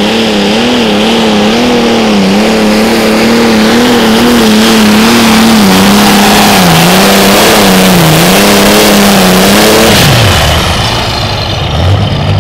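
Oliver 1855 super stock pulling tractor's engine running flat out under load, its pitch wavering up and down. About ten seconds in the throttle is cut: the pitch drops sharply, a high whine falls away, and the engine settles to a low idle near the end.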